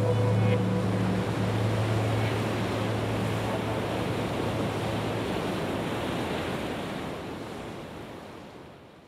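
A steady rushing noise with a low hum under it; the hum drops away within the first few seconds and the rushing fades out gradually toward the end.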